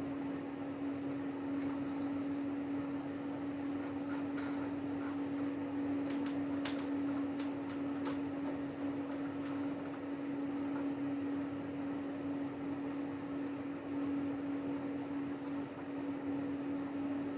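Metal lathe running at a steady speed with a steady hum, and a few light clicks, most of them about four to seven seconds in.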